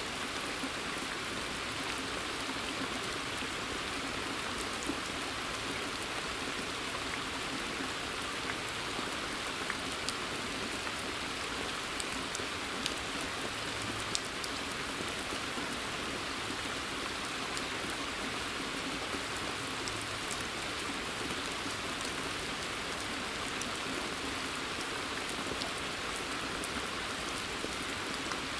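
Steady rain falling onto a pond's water surface, an even hiss with scattered louder single drops.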